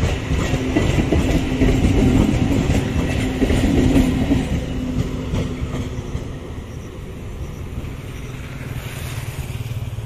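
Electric multiple unit (EMU) local train passing close by, its wheels clattering over the rail joints with a steady motor hum. The sound fades after about six seconds as the train moves away, leaving a low steady rumble.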